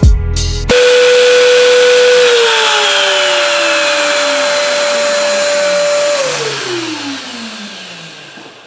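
A shop vacuum on the CNC's dust shoe and the router spindle running, then switched off one after the other. About two seconds in, one motor's whine starts falling slowly in pitch; about six seconds in, the other drops too, and the noise fades away as both spin down.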